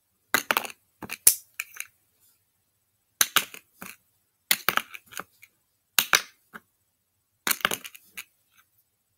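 Small plastic slime containers and lids clacking against each other and the mat, in six short clusters of sharp clicks about a second and a half apart.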